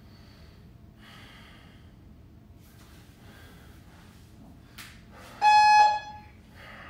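Wall-mounted gym interval timer giving one loud, steady electronic beep about half a second long near the end, marking the change to the next timed interval. Before it there is only faint breathing and movement on the floor.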